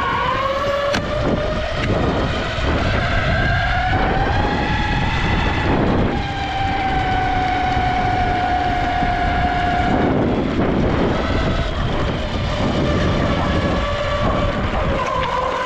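Ecomobl M24 Pro electric skateboard's motors whining as it rolls over pavement, over a steady rumble of wheels on the road. The whine climbs in pitch over the first few seconds as the board speeds up, drops twice as it slows, about six and ten seconds in, and climbs again near the end.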